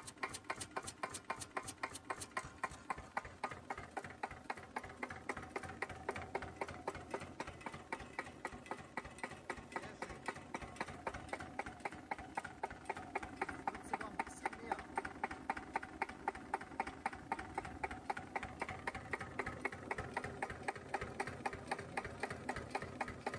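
Cunewalder single-cylinder evaporative-cooled engine idling very slowly, an even chuff-knock of each firing stroke at about four beats a second, held at low idle after its injection pump's idle spring was adjusted.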